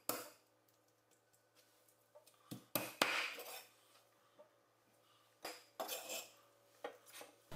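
A handful of faint, separate knocks as a Chinese cleaver chops raw chicken drumsticks on a thick wooden chopping block, with quiet gaps between strokes; the loudest comes about three seconds in.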